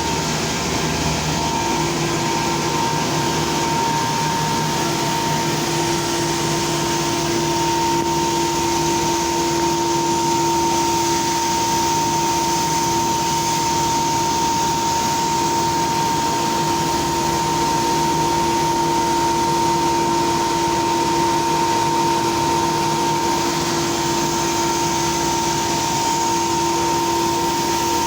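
A machine motor running steadily with a constant whine over a hiss of noise, without pauses or knocks.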